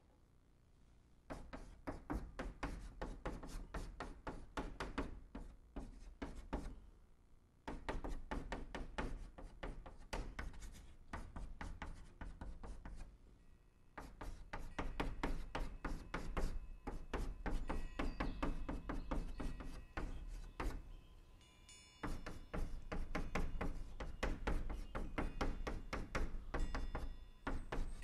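Chalk writing on a chalkboard: rapid tapping and scraping strokes in four long runs, broken by short pauses between lines of characters.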